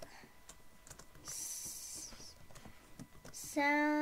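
Light typing on a computer keyboard, a few scattered key clicks, with a brief hiss about a second in. Near the end a child's voice starts humming one steady note, the loudest sound here.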